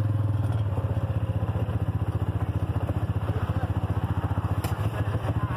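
Small utility-vehicle engine idling: a steady low hum with a fast, even pulsing. A short sharp click sounds near the end.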